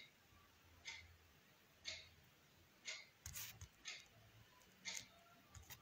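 Faint, even ticking, about one tick a second, with a few quicker extra clicks around the middle and near the end, over a faint low hum.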